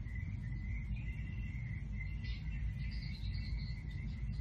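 Quiet room tone: a steady low rumble with a faint, thin high whine running through it.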